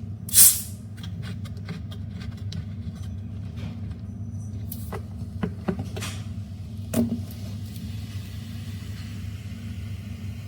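Kitchen clatter as a tray of cookies goes back into the oven. There is a loud sharp clack about half a second in, then scattered light clicks, a few knocks and a thump about seven seconds in, over a steady low hum.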